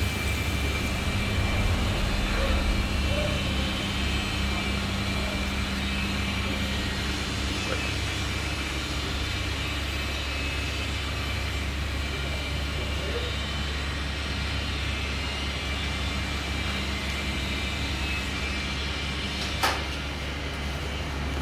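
Steady low machine hum with a faint high whine over it, and one sharp click near the end.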